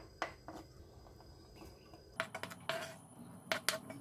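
Light clicks and scrapes of a knife pushing chopped ginger and red onion off a plastic cutting board into a steel pot, with the pieces dropping onto the chicken; a couple of clicks at first, then a quick run of them in the second half.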